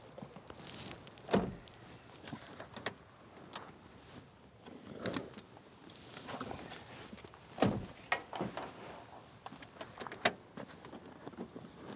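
Scattered knocks and clicks over light rustling, with the sharpest knocks about a second and a half in, near eight seconds, and just after ten seconds.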